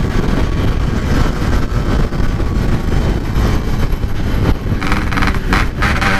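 Yamaha RX-King's two-stroke single-cylinder engine running under throttle while the motorcycle pulls away, mixed with a steady rush of wind and road noise.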